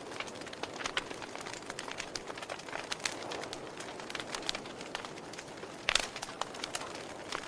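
Wood fire crackling: a steady rustling hiss with frequent sharp pops and snaps, a loud cluster of pops about six seconds in.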